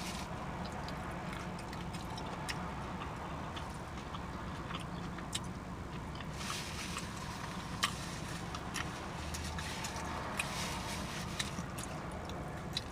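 Close-up chewing with scattered smacks and mouth clicks, over the steady low hum of a car's idling engine.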